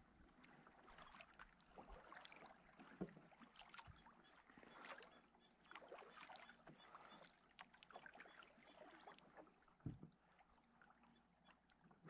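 Faint water sounds around a kayak: small irregular splashes and lapping, with a few soft knocks and one low thump near the end.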